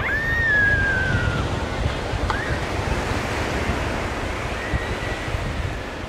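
Surf washing on a sandy beach, with wind buffeting the microphone as a low rumble. A high, whistle-like note slides slowly downward in the first second and a half, and a brief rising one follows a little after two seconds.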